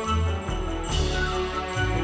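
Instrumental Christmas music with jingle bells over a pulsing bass line.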